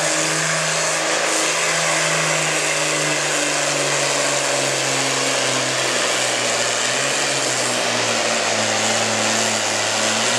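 John Deere diesel farm tractor running at full throttle while pulling a weight sled, with the engine note steady and then slowly dropping in pitch through the second half as the growing load pulls the engine down.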